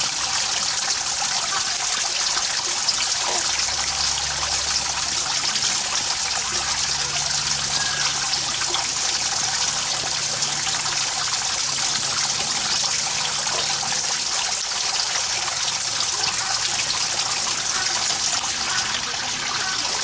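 Running water trickling and splashing steadily, an even hiss that does not let up.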